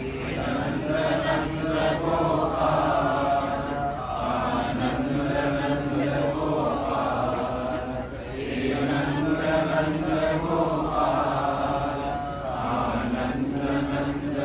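A group of voices chanting a Hindu devotional chant in unison, in long sung phrases that repeat about every four seconds.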